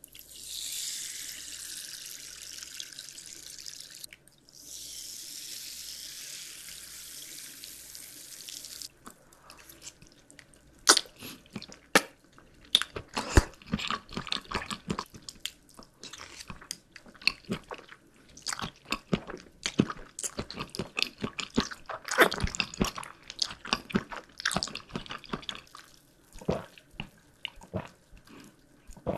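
A steady hiss in two stretches, split by a short break about four seconds in. Then, from about nine seconds in, candy is bitten and crunched close to the microphone, with many sharp cracks and crisp chewing.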